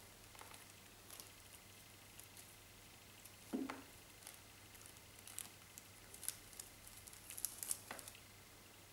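Faint rustling and light ticking of kittens batting and mouthing a feather wand toy on a fleece cat bed, with a brief low sound about a third of the way in and a cluster of sharper ticks near the end.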